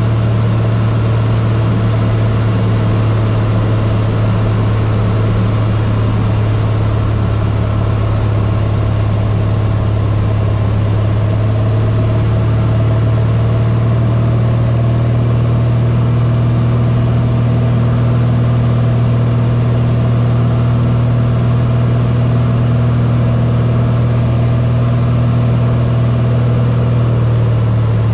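Cessna 182's piston engine and propeller droning steadily in flight, on approach for landing.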